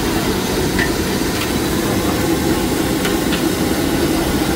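Gas wok burner running steadily under a wok of frying noodles, with a few light scrapes of a metal spatula against the wok.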